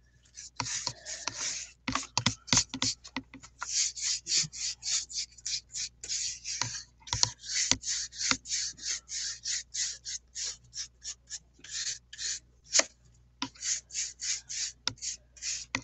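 Paintbrush scrubbing back and forth over 400-grit sanded pastel paper: quick, scratchy rasping strokes, a few a second in irregular runs.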